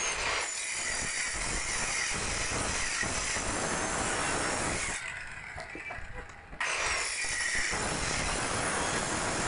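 Small handheld electric circular saw (cutter) running and cutting across a thick block of solid wood. It eases off briefly about five seconds in, then bites into the wood again.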